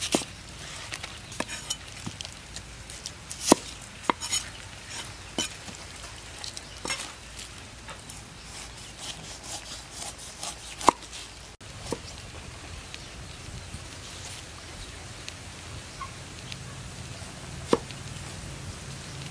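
Large knife cutting through a whole pineapple's tough rind on a wooden chopping board: scratchy crunching with a series of sharp knocks as the blade strikes the board. The knocks come often in the first half, then only now and then.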